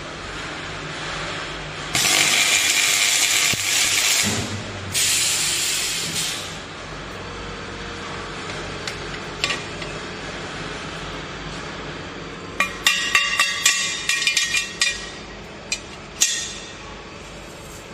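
Automatic steel bicycle rim welding machine at work: two loud hissing bursts a couple of seconds in, a few seconds long each. Later comes a run of sharp metallic clinks as the welded steel rim is handled.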